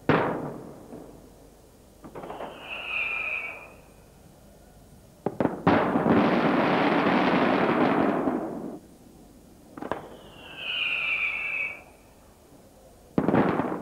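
Aerial firework shells (traditional Maltese murtali) going off: a sharp bang at the start, a whistling tone about two seconds in, two quick cracks followed by about three seconds of dense rushing noise, then another crack and whistle, and a last bang near the end.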